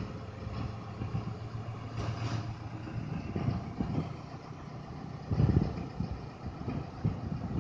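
Diesel engine of a mobile crane running steadily at low revs during a lift. Irregular low buffets on the microphone come over it, the strongest about five and a half seconds in.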